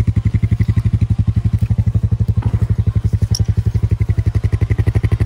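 An engine idling close by with a steady, rapid beat of about ten pulses a second.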